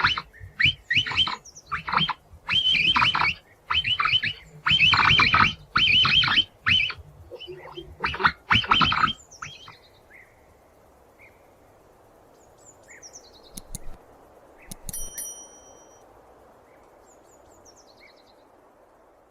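Capybara giving a rapid series of high-pitched calls, over a dozen in about nine seconds, which then stop. Faint background hiss follows, with a few bird chirps.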